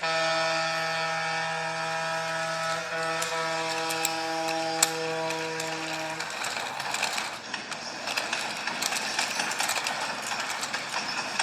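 Train horn sounding one steady held note, cutting off about six seconds in, followed by rapid clicking and rattling of a train running.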